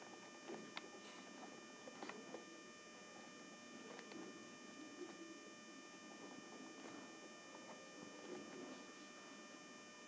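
Faint scratching of a ballpoint pen writing on notebook paper, with a few light ticks in the first couple of seconds, over a faint steady electrical hum.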